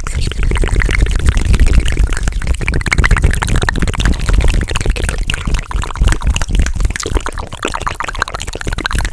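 Fast, aggressive ASMR mouth sounds close to the microphone: a dense, unbroken run of quick clicks and smacks.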